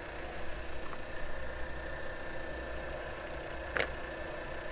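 Taig benchtop lathe running steadily while an 11/32 inch twist drill cuts into the spinning part from the tailstock, chattering because the step up in drill size is a little too aggressive. A brief click sounds about four seconds in.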